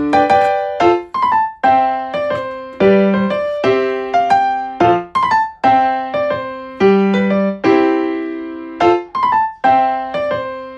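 Background piano music: a light melody of struck notes and chords, each fading before the next, in an even rhythm.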